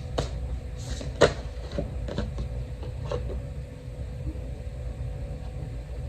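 A few light taps and clicks with one sharper knock about a second in, over a steady low hum.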